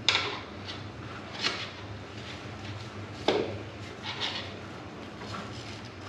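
Tire spoons scraping and clacking against the rim and tire bead during the final pulls of levering a dirt bike tire's bead onto the rim. The sounds are a handful of short, irregular scrapes and knocks, the loudest just at the start and about three seconds in.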